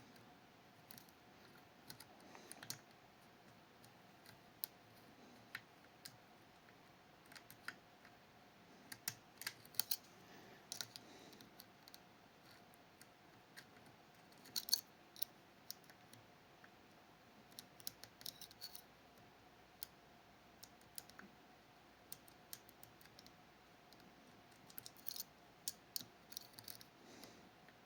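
Irregular small clicks and ticks of lock picks working the levers of a Fichet 484 lever sidebar lock, coming in scattered clusters over a faint steady hum.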